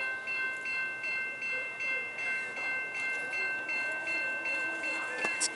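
Railroad grade-crossing bell ringing steadily, about two and a half strokes a second. Sharp clicks start near the end.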